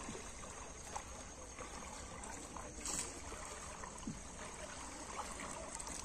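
Faint trickling and lapping of river water at a mudbank edge, with scattered small clicks and one brief sharp click about three seconds in.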